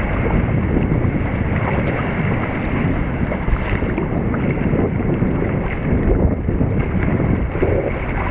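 Wind noise on the microphone over a choppy sea, with water sloshing and waves breaking against the rocks.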